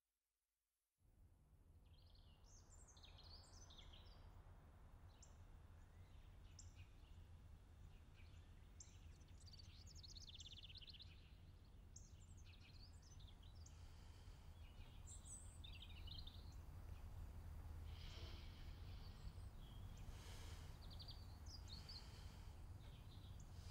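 Faint birds chirping in short scattered calls over a steady low rumble of background ambience, starting about a second in.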